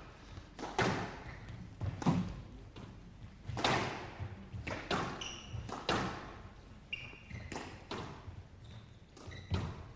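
Squash rally: the rubber ball struck by rackets and hitting the court walls in sharp knocks about once a second, with a few short squeaks of shoes on the court floor.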